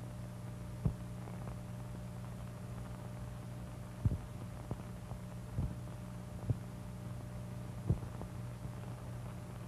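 Steady low hum of an old optical film soundtrack, with a handful of scattered clicks and pops from the worn print.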